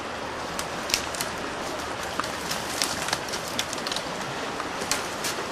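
Rushing water of creek rapids, a steady hiss, with a scattering of short sharp ticks.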